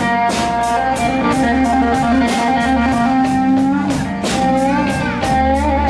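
Blues band playing between sung lines: an electric guitar fill over a steady drum beat and bass.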